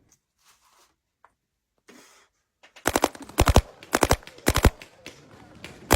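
Paintball gun firing in quick bursts of sharp shots, starting about three seconds in, after a few faint handling clicks.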